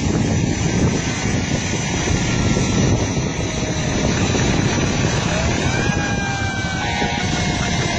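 A large fire burning, heard as a loud, steady rushing roar mixed with wind buffeting the microphone. A faint siren wail rises about five and a half seconds in and then slowly falls away.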